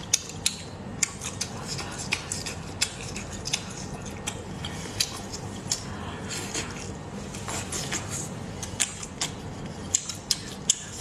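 Close-miked eating sounds: sharp, wet clicks and smacks of chewing and biting whole spicy braised squid, coming irregularly several times a second, with gloved hands pulling the sauce-coated squid apart. A low steady hum sits underneath.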